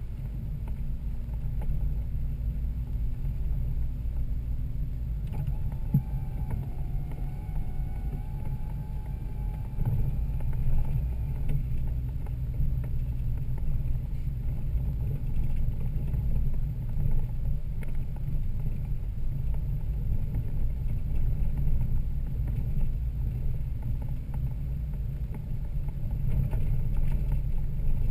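Toyota Land Cruiser 80 Series running on an off-road trail, a steady low engine and drivetrain rumble. A faint wavering whine sits over it for several seconds near the middle.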